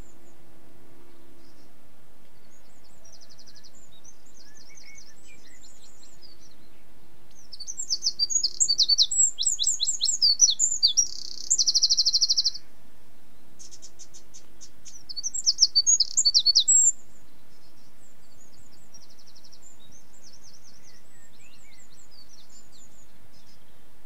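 A small songbird singing: quick high chirps and rattling trills in two dense bursts through the middle, with fainter scattered chirps before and after.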